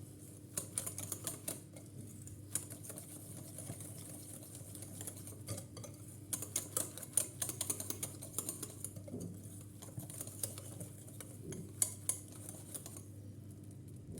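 A hand mixing utensil clicking and tapping against a bowl as flour is stirred into a thick cake batter. The clicks come in quick, irregular clusters and stop about a second before the end.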